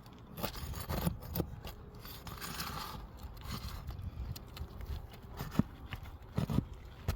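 Asphalt roof shingles being worked by hand: irregular scraping, rubbing and crackling with scattered clicks and taps as the tab is lifted and pulls away from its seal strip.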